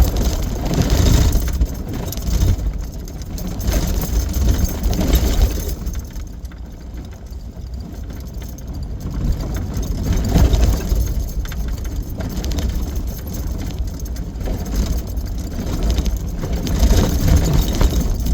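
Vehicle driving on a rough, muddy dirt road: a low engine and road rumble that swells and eases, with scattered rattles.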